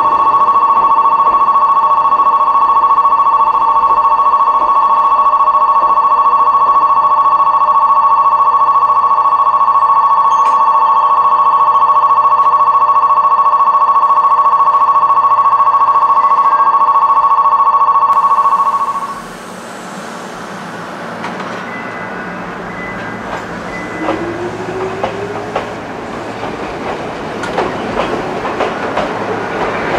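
Station departure bell ringing steadily on one loud, unchanging tone for about eighteen seconds, then cutting off suddenly. An electric train then pulls out: its motor whine rises in pitch as it gathers speed, and its wheels click over the rail joints.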